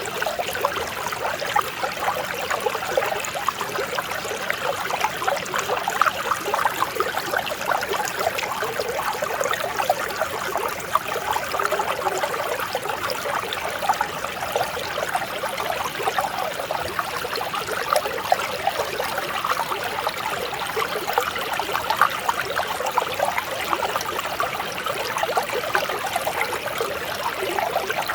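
Mountain stream flowing steadily over rocks, a continuous babble and splash of water.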